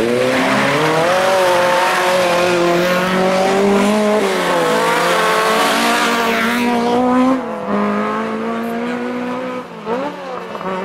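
Rally car passing close at speed, its engine held at high revs and climbing, with a short dip about four seconds in, under a hiss of tyre noise. After about seven seconds the engine drops in pitch and fades as the car pulls away, with a quick rev near the end.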